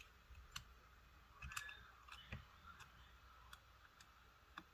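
Faint, scattered small clicks and light taps, about half a dozen irregularly spaced, from hand tools and small parts being handled during a smartphone repair.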